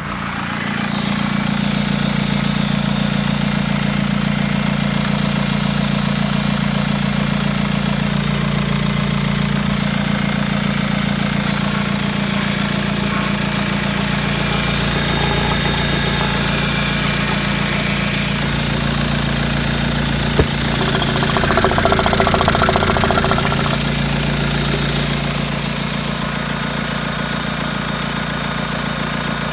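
Volkswagen Passat B5's 1.9 TDI (AVB) four-cylinder turbodiesel idling steadily, with a short click about twenty seconds in and a brief louder stretch just after.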